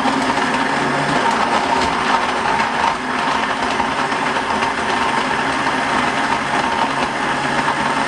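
Electric countertop jug blender running at a steady speed, churning berries in almond milk into a smoothie, with a steady motor whine over the noise of the mixing.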